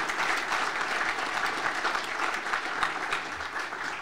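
Audience applauding, the clapping dying down a little near the end.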